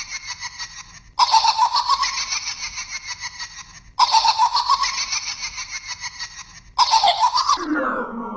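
A recorded laugh played as a loop: the same short stretch of fast, pulsing laughter restarts abruptly about every three seconds. Near the end the last repeat drops steeply in pitch, as if slowed down.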